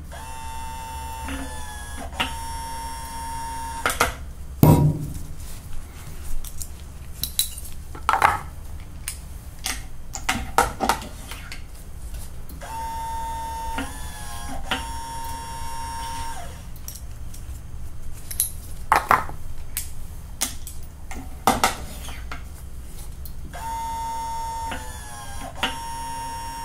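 AMP Press seating bullets into cartridges: its motor runs three times for about four seconds each, a whine that shifts pitch partway through each stroke as the seating force is recorded. Between strokes come sharp clicks and metallic clinks of brass cartridges being handled and set in the press.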